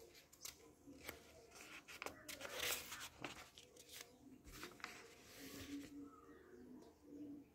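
Sheets of a printed paper booklet being handled and turned: faint paper rustling and crinkling, loudest about two to three seconds in and again around five to six seconds.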